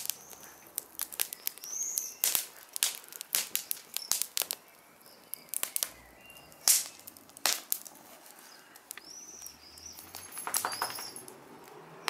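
Wood fire in a metal fire bowl crackling, with irregular sharp pops and snaps. A bird chirps a few short calls, once early and twice near the end.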